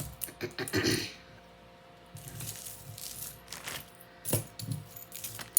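Metal jewelry, such as bracelets and bangles, clinking and jingling as it is handled, in short clusters of sharp clicks: a burst in the first second, then a few more near the end.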